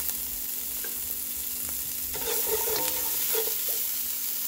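Diced onion and garlic sizzling steadily in oil in a nonstick skillet, with a spatula stirring and scraping across the pan.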